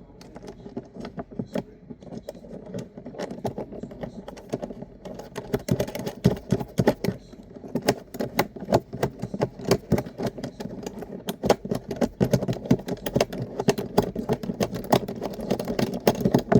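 Irregular clicking and rattling of small metal hardware being handled, growing busier and louder after about five seconds.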